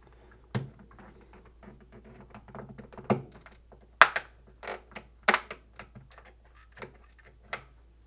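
Plastic clicks and knocks as a replacement fridge light switch is pushed and clipped into its slot in the fridge's plastic cabinet wall, with the sharpest ones about three to five and a half seconds in.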